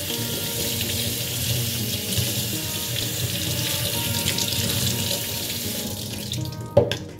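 Kitchen faucet running water over asparagus held in the hands and splashing into a stainless steel sink. The water stops about six seconds in, followed by a single sharp knock. Faint background music underneath.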